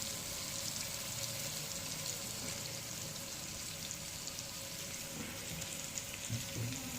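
Small green mussels shallow-frying in a little coconut oil, a steady soft sizzle with fine crackles.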